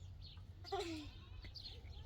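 Small birds chirping repeatedly, with one short, louder pitched call that falls in pitch about a second in, over a steady low hum.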